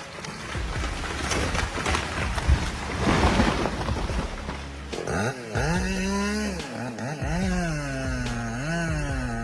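Chainsaw engine revving up and down, its pitch repeatedly rising and falling, from about halfway in. Before that, a rough, noisy rushing with scattered crackles.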